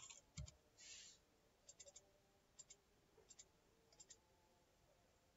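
Faint clicks of computer keyboard keys, a few scattered keystrokes singly and in quick runs of two or three, against near silence.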